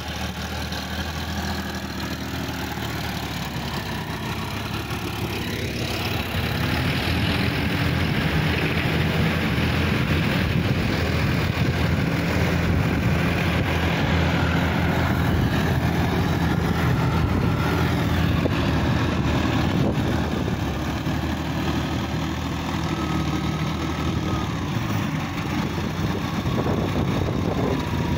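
Sonalika DI-50 RX tractor's diesel engine running steadily under load as it pulls a rotary tiller through a flooded, muddy paddy field. It grows louder about six seconds in.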